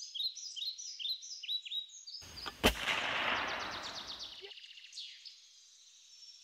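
Forest birdsong, rapid repeated chirps, then about two and a half seconds in a single gunshot-like crack whose echoing tail dies away over a couple of seconds while the birds keep chirping faintly.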